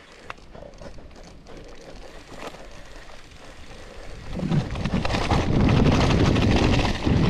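Mountain bike setting off and rolling over a dirt trail: quiet at first, then from about four seconds in a loud rush of wind on the camera microphone and rattling of the tyres and bike that keeps up to the end.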